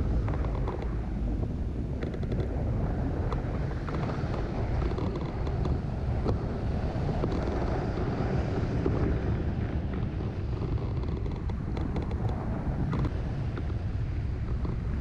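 Wind rushing over the microphone of a camera mounted on a hang glider's wing in flight: a steady, low buffeting.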